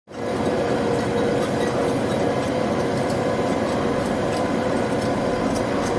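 Hankook Protech 11 manual lathe running, a steady mechanical hum with a constant tone, with faint light ticking.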